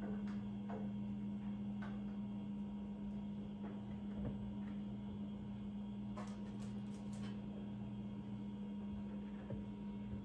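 A steady low hum, with faint light taps and rustles as baked cheese taco shells are lifted off a parchment-lined tray and laid over a plastic bowl; a brief cluster of crisp ticks about six seconds in.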